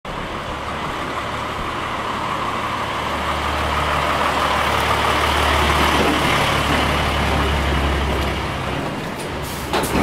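Large flatbed truck's diesel engine running, a steady low hum that grows louder toward the middle and eases off again, with a short sharp clatter near the end.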